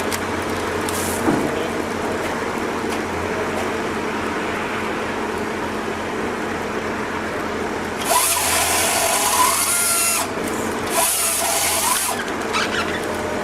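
A machine running with a steady hum, broken by two loud bursts of hissing, about eight and eleven seconds in.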